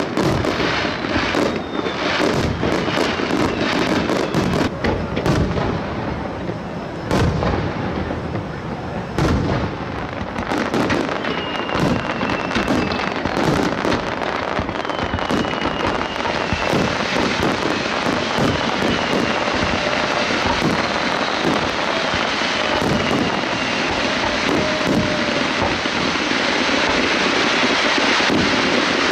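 Fireworks display: a rapid run of shell bursts and dense crackling. Several falling whistles come through in the middle, and the crackle grows denser and louder near the end.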